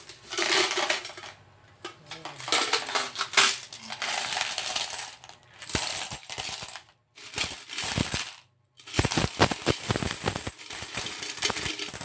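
Coins poured out of an opened can-shaped coin bank into a plastic bowl, clinking and jingling in several bursts with short pauses as the can is shaken and tipped.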